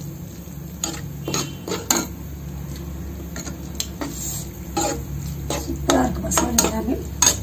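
Metal spoon stirring thick okra masala in a non-stick kadai, with irregular clinks and scrapes of the spoon against the pan.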